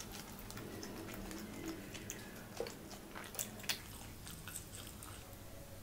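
Close-miked mouth sounds of a person chewing food, with soft wet clicks throughout and a few sharper smacks near the middle.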